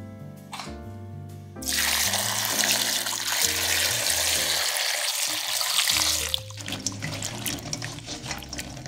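Running water from a tap splashing onto green beans in a stainless steel colander, a loud steady hiss that starts about a second and a half in and stops about six seconds in. After it, the wet beans are tossed by hand in the metal colander, a patter of short clicks and knocks.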